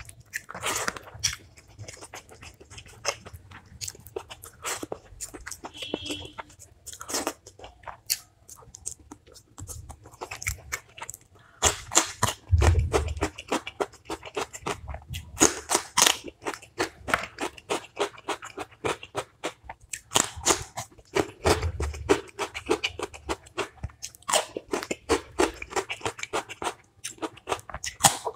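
Close-miked eating: a person chewing and biting food, with many quick crisp crunches at an irregular pace and a few heavier low thuds along the way.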